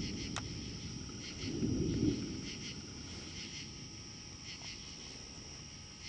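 Thunder rumbling: a clap's low rumble fades away, then a second, softer rumble swells about one and a half seconds in and dies out. Crickets chirp steadily in pulses underneath.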